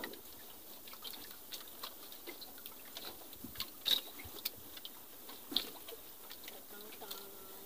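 Faint, scattered small clicks and taps of hands working a fish and hand line: a freshly caught fish being taken off the hook.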